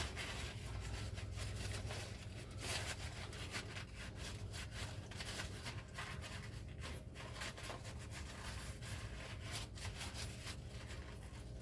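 Cloth rag rubbing in irregular wiping strokes, cleaning excess oil off the engine's oil filter mounting surface and seal ring.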